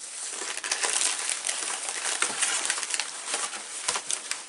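Clear plastic bag of kit parts crinkling and rustling as it is handled, with many small sharp crackles.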